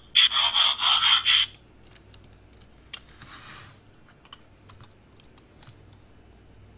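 Allspark Tech Bumblebee toy playing a short electronic sound clip through its small built-in speaker: a pulsing burst of a little over a second at the start. After it come faint scattered clicks of the hard plastic arms and panels being moved.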